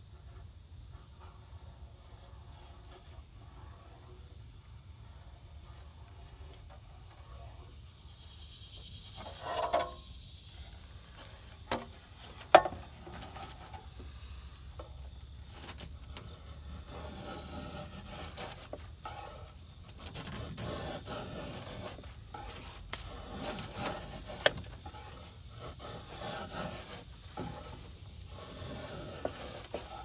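Knife shaving curls off an oak snow-shovel handle: repeated scraping strokes through the second half, with a couple of sharp knocks about midway. A steady high insect drone sounds underneath.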